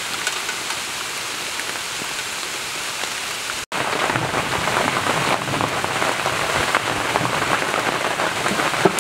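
Rain falling steadily on trees and grass. After a cut about a third of the way in it is louder and closer, with many separate drops heard.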